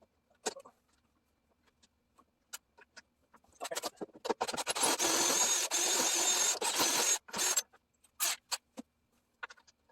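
Metal tool work: a few scattered clicks and knocks, then about four seconds of loud, continuous scraping, then a few more clicks near the end.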